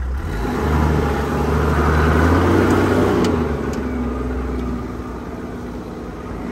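Toyota Land Cruiser engine heard from inside the cabin, pulling harder for a couple of seconds while crawling off-road and then easing back off.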